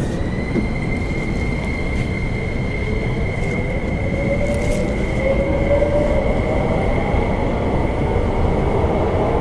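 Inside a trailer car of an MTR SP1900 electric multiple unit as it gathers speed, with running rumble from wheels and track. The IGBT-VVVF traction inverter gives a steady high whine, while a lower motor whine rises slowly in pitch.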